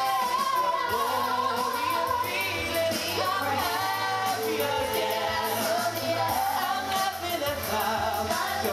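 Male lead singer and a youth choir singing live into microphones over amplified backing music, with the choir's female voices joining the melody.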